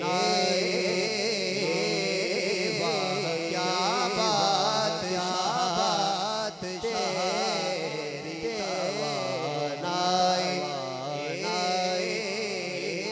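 A man singing a naat, a devotional Urdu poem, into a microphone. He draws out long wavering, ornamented notes.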